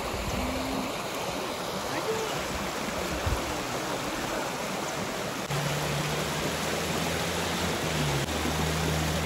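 River water rushing steadily. A low, steady hum of a few held tones joins about halfway through.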